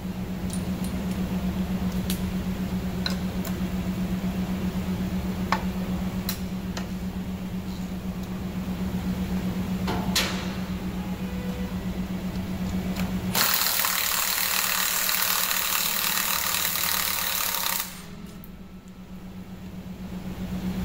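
Hand ratchet clicking in short runs as bolts are worked loose, over a steady pulsing hum. About thirteen seconds in, a loud rushing hiss takes over for about four and a half seconds, then stops abruptly.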